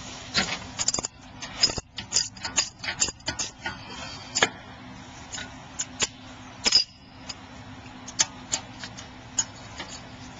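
Half-inch drive ratchet on a 7 mm hex key clicking in irregular runs as it works a brake caliper slider bolt. The clicks are thickest in the first five seconds and sparser after.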